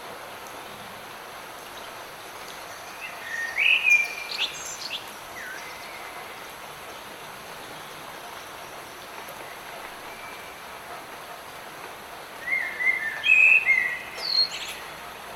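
Steady hiss of light rain, with a songbird singing two short phrases of quick chirps and whistles, about three seconds in and again near the end.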